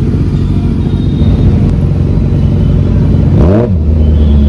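Superbike engines running at walking pace in traffic. About three and a half seconds in, one engine gives a quick throttle blip, its pitch rising and falling, then it settles back to a steady low idle.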